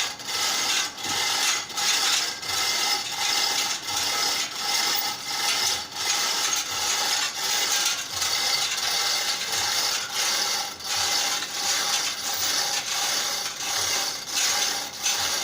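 Hand chain hoist being worked, its chain and ratchet rasping and clicking in an even rhythm of about one and a half pulls a second.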